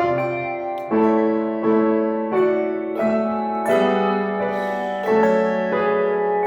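Handbell choir ringing a slow passage in chords, a new chord struck about every three quarters of a second, each one ringing on under the next.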